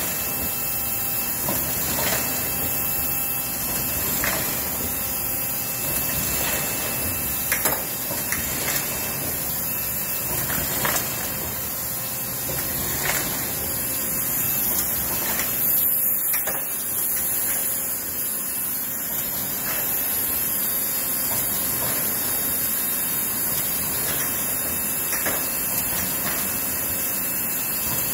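1965 Bobst 1260E flatbed die cutter running at speed: a steady mechanical clatter under a high hiss, with a short knock about every two seconds as the machine cycles sheet by sheet.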